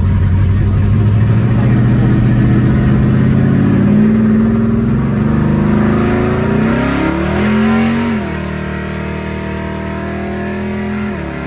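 Naturally aspirated ("all motor") car engine accelerating, its pitch climbing for several seconds before dropping sharply about eight seconds in. It then runs steadily at lower revs, with another brief dip near the end.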